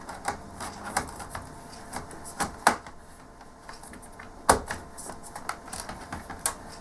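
Irregular plastic clicks and taps of a laptop keyboard being laid back down into its Dell laptop chassis and handled, with two louder knocks, about two and a half and four and a half seconds in.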